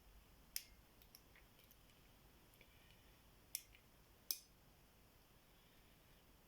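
Small metallic clicks of a pick and tension wrench working the wafers of a tiny wafer lock: three sharp clicks, about half a second in and at about three and a half and four and a quarter seconds, with fainter ticks between.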